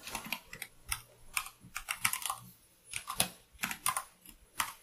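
Computer keyboard typing: quick, irregular keystrokes in short runs, several clicks a second.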